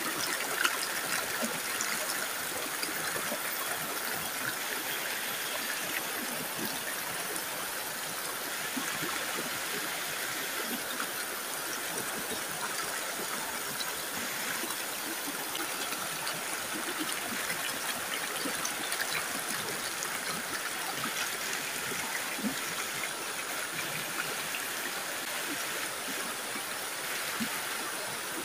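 Shallow stream flowing over rocks and boulders: a steady rush of water.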